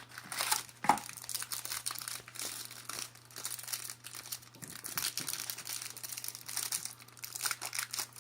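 Plastic wrapping crinkling and tearing as a sealed box of trading cards is opened, an irregular run of crackles with a sharper rip about a second in.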